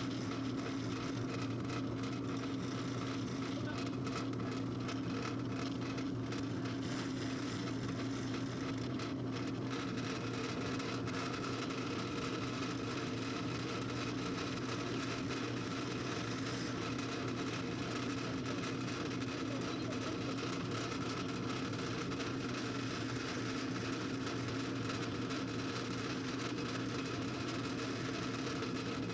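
Drill press running with a steady hum as the bit drills into a small metal block clamped in a vise.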